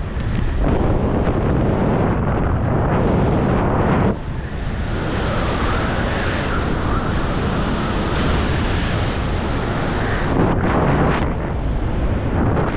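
Loud wind rushing and buffeting over a skydiver's camera microphone at altitude, with a brief dip and change in tone about four seconds in.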